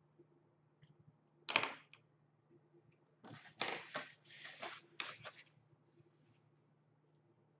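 Paper tissue rustling as it is pulled out and handled: one short rustle, then a cluster of quick rustles a couple of seconds later.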